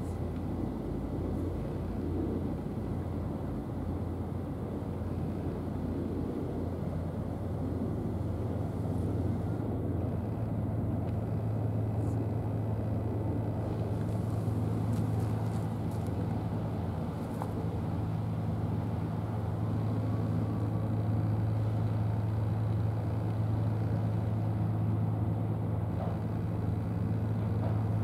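Steady low drone of an engine running, with a deep hum over a rumble, growing stronger about eight seconds in.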